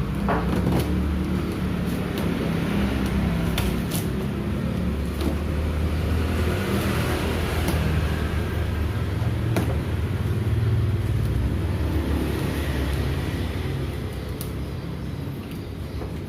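A motor vehicle engine running with a steady low rumble, easing off near the end, with a few light clicks over it.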